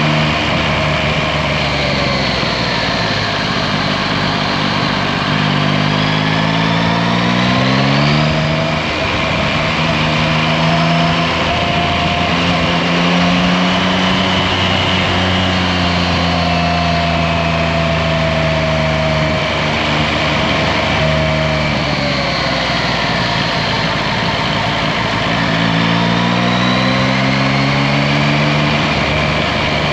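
Yamaha Tracer 9 GT's 890 cc inline-three engine running on the move, rising in pitch as the bike picks up speed a few seconds in and again near the end, over a steady rush of wind and road noise.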